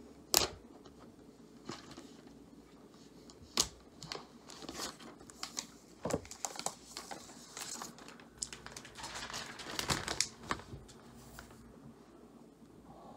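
Thin clear plastic protective film, just peeled off a new iPad, crinkling and crackling in the hands, with a few sharp taps of handling. The crinkling is busiest about nine to ten and a half seconds in.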